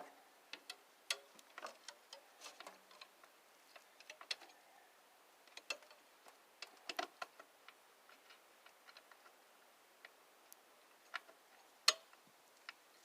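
Faint, irregular light metal clicks and taps of a socket wrench working the nuts as they are tightened, with a sharper click near the end.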